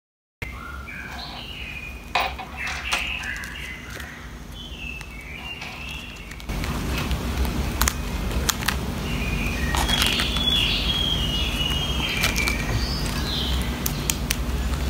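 Clear plastic photocard-binder sleeves rustling and crackling with sharp clicks as cards are slid into the pockets and the pages are turned. Short high chirps come and go over a steady low hum, which grows louder about six seconds in.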